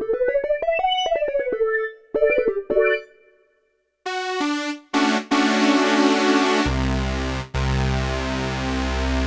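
Alesis Ion synthesizer playing keyboard patches from a Nord Stage sound pack. First comes an electric-piano sound with a fast run of notes up and back down and a few short chords. After a brief silence near the middle, a new patch plays full sustained chords, and a deep bass joins about two-thirds of the way through.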